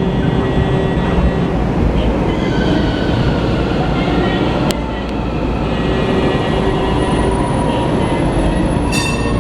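Toyama city streetcar running by on its tracks, a steady loud noise with thin high squealing tones from the wheels on the rails. There is a single sharp click about halfway through and a short ringing burst near the end.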